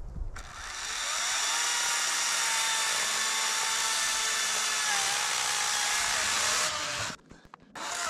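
Ryobi chainsaw cutting through a log: it winds up with a rising whine about half a second in, runs steadily through the cut, and stops about seven seconds in, then starts again briefly near the end.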